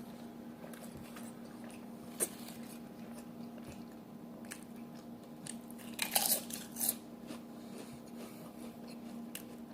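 A person biting into and chewing a cheeseburger close to the microphone, with wet mouth sounds and some crunching. There is a sharp bite about two seconds in and a louder run of chewing noises around two-thirds of the way through, over a steady low electrical hum.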